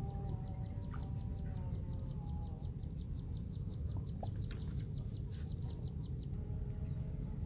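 A high chirping call repeated rapidly, about six chirps a second, stopping about six seconds in, over a steady low rumble. A lower wavering tone sounds in the first few seconds.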